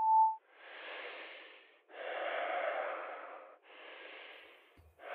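A short voicemail beep, then muffled noise over a phone line in four long swells with short gaps between them: a butt-dial message.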